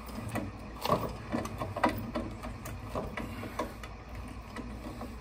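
Pliers gripping and turning the threaded fitting of a newly fitted boiler low-water cutoff as it is tightened: a string of irregular metal clicks and knocks, the loudest about one and two seconds in.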